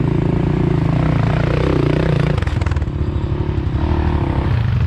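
ATV (quad) engine running under throttle, its pitch wavering up and down. About halfway through it drops to a lower, throbbing run.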